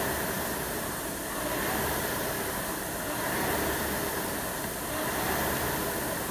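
Concept2 rowing machine's air-resistance flywheel whooshing as it is rowed, the rush swelling with each drive stroke about every two seconds.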